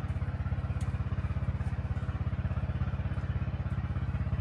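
Small engine running steadily at a low, even speed, a rapid regular putter with no change in pace.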